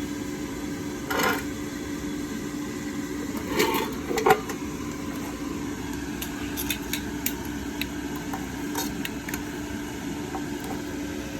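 Hot air fryer humming steadily, with a few knocks as the basket and foil-wrapped fish are handled, then a series of light clicks.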